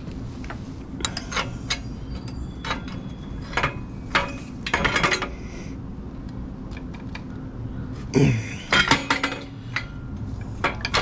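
Metal hand tools, wrench and sockets, clinking and tapping against each other and the motorcycle's exhaust fittings in short irregular clusters while the exhaust mounting bolts are worked loose.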